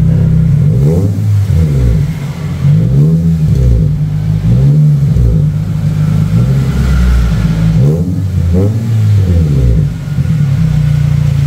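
Nissan Livina's four-cylinder engine blipped in a series of quick revs up and back down from idle, settling back to a steady idle near the end. It breathes through an aftermarket chrome muffler held by hand against the tailpipe, a test fit to hear its tone.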